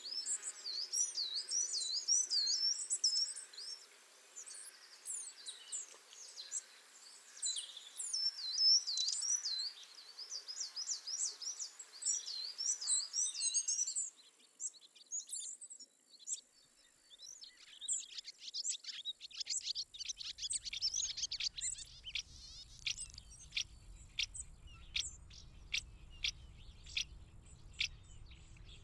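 Small birds calling: a dense, rapid high-pitched twittering for about the first half, then, after a short lull, a run of short, sharp high calls repeating about once or twice a second over a low rumble.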